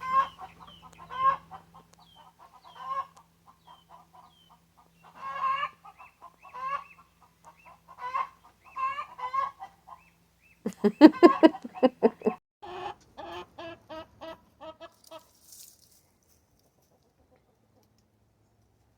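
Chickens clucking: a string of short calls, with a louder run of rapid clucks about eleven seconds in. The calls stop about three seconds before the end.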